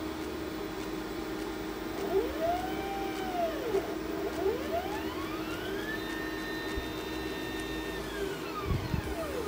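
Glowforge laser cutter cutting cardboard: its fans hum steadily while the motors driving the laser head whine, rising and falling in pitch as the head speeds up and slows down. There is one short rise-and-fall about two seconds in, then a longer whine that climbs, holds level for a couple of seconds and falls away near the end.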